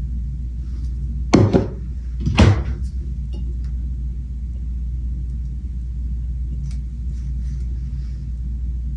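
Steady low background hum, with two short, loud knocks about a second apart about one and a half seconds in.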